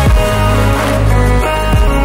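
Electronic background music with heavy bass and a steady beat, without singing.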